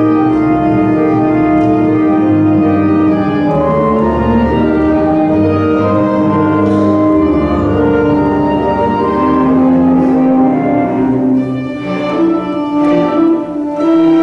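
Orchestra playing classical music, with bowed strings prominent. Long held notes for most of the passage give way to shorter, accented notes near the end.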